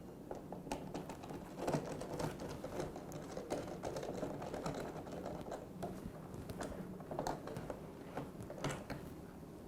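Two Phillips screws being backed out of a dishwasher's side air duct, with irregular light clicks and taps of the screwdriver, screws and plastic panel being handled.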